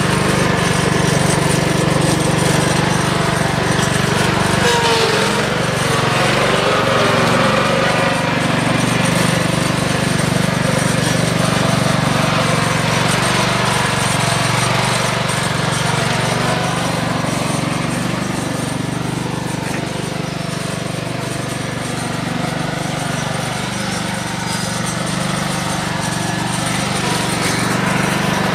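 Riding lawn mower's small engine running steadily and loudly as the mower is driven over rough ground.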